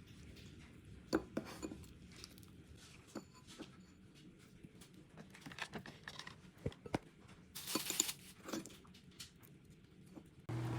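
Quiet kitchen handling: scattered light clicks and taps of dishes and utensils, with a short crackly rustle about eight seconds in. A steady low hum starts suddenly just before the end.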